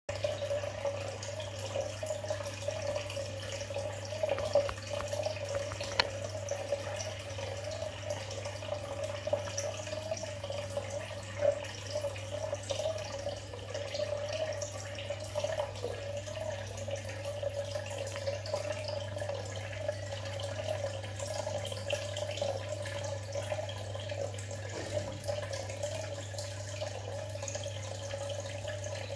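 Aquarium water bubbling and dripping over a steady low hum, as from an air pump aerating the tank, with a few sharp clicks in the first half.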